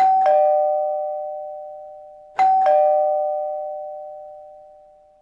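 Two-tone ding-dong doorbell chime, a higher note then a lower one a quarter second apart, sounded twice about two and a half seconds apart, each pair ringing on and fading slowly.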